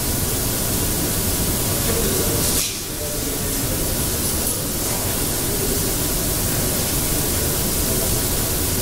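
Steady hiss of background noise with no speech. There is a brief brighter hiss and a short dip about two and a half seconds in.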